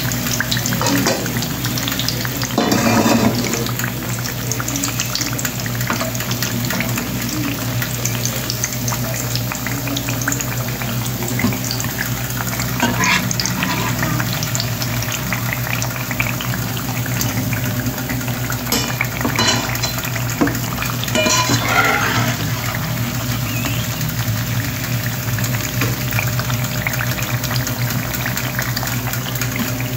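Sweet potato slices sizzling as they fry in oil and brown sugar in a pan, with a steady crackle. A metal spatula scrapes and turns them a few times, louder for a moment about three seconds in, at thirteen seconds, and around twenty seconds.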